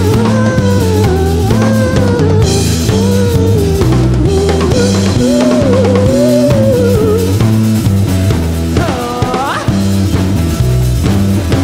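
Live rock band playing an instrumental passage: drum kit and bass guitar keep a steady groove under a wavering electric-guitar lead line, with a quick upward slide about nine seconds in.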